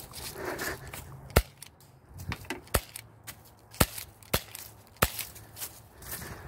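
HK USP airsoft pistol firing five single shots, each a sharp crack, spaced about half a second to a second and a half apart, with fainter ticks between them.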